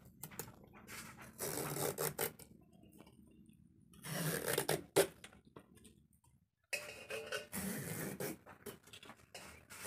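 Hand vegetable peeler scraping long strips of skin off a bottle gourd, in several separate strokes of about a second each.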